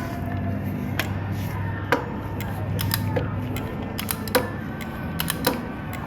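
Torque wrench clicking and clinking as the cylinder head bolts of a Suzuki GS450 engine are tightened in stages. Sharp metallic clicks come unevenly, roughly one or two a second, over a low steady hum.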